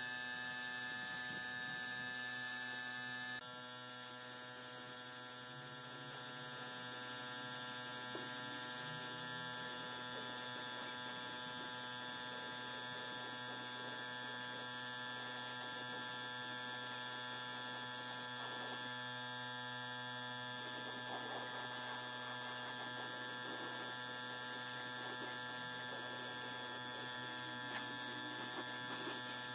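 Steady motor hum with a high hiss of compressed air from a gravity-feed spray gun spraying finish onto wood. The hiss drops out briefly about two-thirds of the way through.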